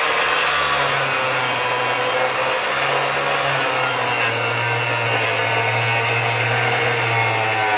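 Angle grinder running under load, its disc cutting through a steel suspension bolt: a steady, loud grinding over the motor's even hum.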